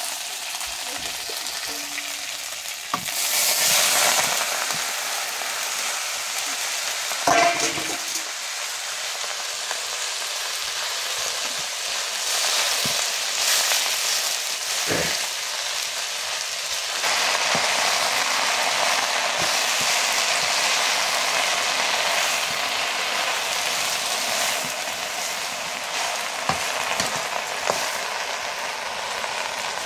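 Food sizzling as it fries in a hot pan, growing louder in stretches as it is stirred, with a few knocks of a utensil against the pan.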